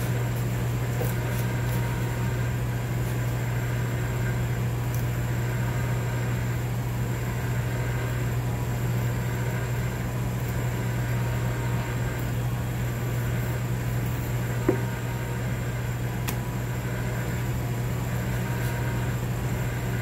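Steady low hum of running kitchen machinery, even in level throughout, with a single short knock about fifteen seconds in.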